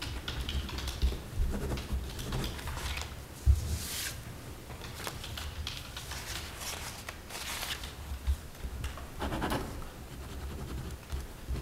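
Pens scratching on paper as documents are signed, with paper rustling and a single thump about three and a half seconds in.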